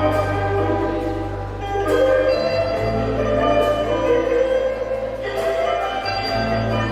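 Instrumental band music led by sasando, the plucked tube zither of Rote, over drums, bass guitar and guitar, with a steady bass line and cymbal hits about every second and a half.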